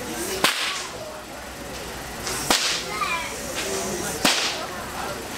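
Ritual whip cracked three times, about every two seconds. Each stroke is a single sharp crack with a short ringing tail.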